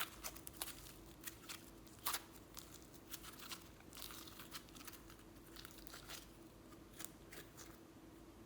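Slime being worked by hand: irregular soft crackles and pops as it is squeezed and stretched, the loudest about two seconds in.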